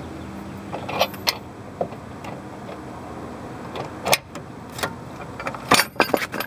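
C-frame ball joint press being screwed down on the lower ball joint of a 2001 Mazda B3000, forcing the worn joint out of the lower control arm: scattered sharp metal clicks and creaks, with a cluster of louder knocks near the end.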